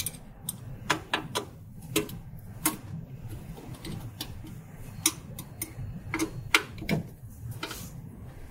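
Screwdriver loosening small screws on a UV printer's metal capping-station mount: a dozen or so irregular sharp metallic clicks and ticks, over a steady low hum.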